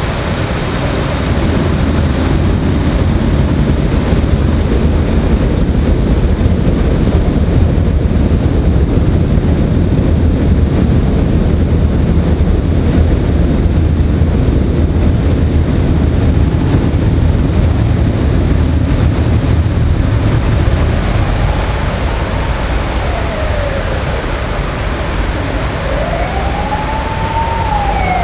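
A steady low rumble of road traffic, then an emergency vehicle's siren wailing up and down, faint at first about three-quarters of the way in and stronger near the end.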